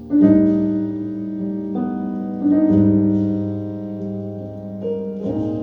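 Piano playing sustained chords in an instrumental passage of a song, a new chord struck every second or two, played back through Wharfedale Diamond 12.2 bookshelf loudspeakers.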